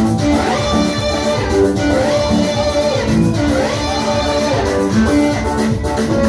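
Gospel praise music led by guitar, playing steadily with sustained notes.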